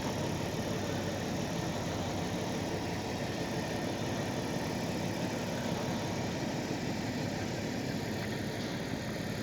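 An engine running steadily at an even idle, with no change in speed.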